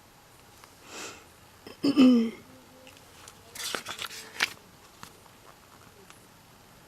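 A woman's wordless vocal reactions: a breath about a second in, a short voiced noise about two seconds in (the loudest moment), then a run of quick breathy bursts, like sniffs or stifled laughter.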